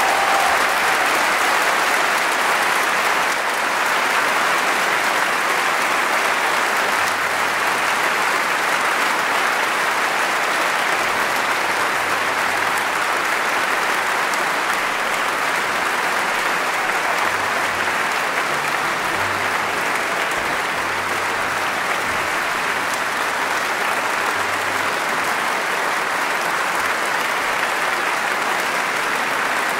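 Audience applauding, a steady, sustained clapping that holds evenly throughout.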